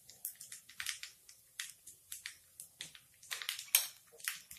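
Mustard and cumin seeds crackling in hot oil in an iron kadhai, with irregular sharp pops a few times a second: the seeds spluttering as the oil tempering (vaghar) gets going.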